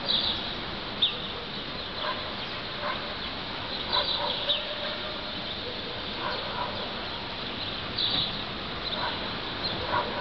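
Birds calling in short, high chirps, a few every second or two, some sliding down in pitch, over steady background noise.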